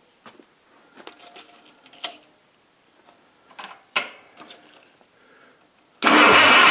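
A few light clicks and knocks, then about six seconds in the International Harvester 300 Utility's four-cylinder gasoline engine is started, suddenly loud, with its rocker cover off and the valves freshly adjusted.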